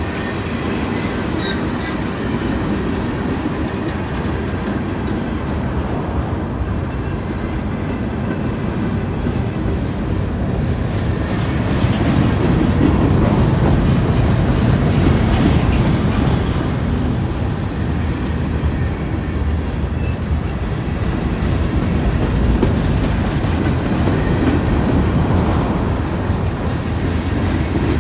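A CSX freight train's cars rolling past close by: a steady rumble of steel wheels on rail that grows louder about twelve seconds in.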